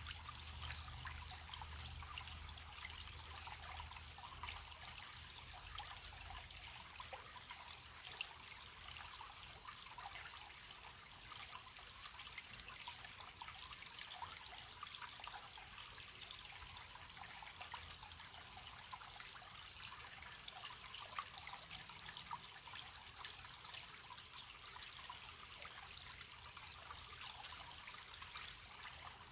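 A gentle stream babbling and trickling steadily, with crickets chirping in a faint high trill. A low rumble underneath fades out about six seconds in.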